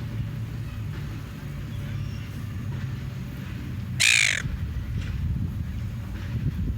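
A seagull gives one loud, harsh squawk lasting about half a second, roughly four seconds in, over a steady low hum.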